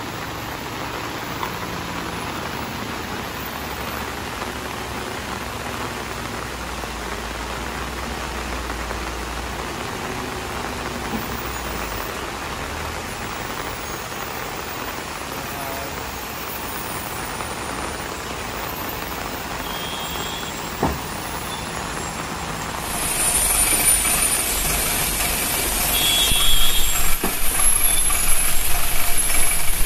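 Steady hiss of heavy rain under the low running of a heavily loaded Tata lorry's diesel engine. About two-thirds of the way in, a loud, high hiss of air rises and holds, louder in spurts near the end, typical of the truck's air brakes as it works the turn.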